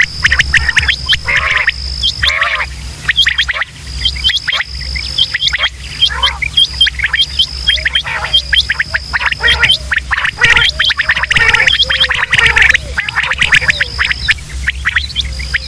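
Quail calling: many overlapping calls, with rapid raspy rattles and short hooked chirps repeating throughout. A steady high-pitched trill and a low hum run underneath.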